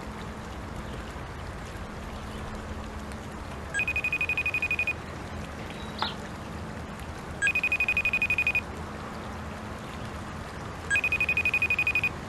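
Mobile phone ringing with an electronic trilling ringtone: three short rings, each about a second long, spaced about three and a half seconds apart, over a faint steady background.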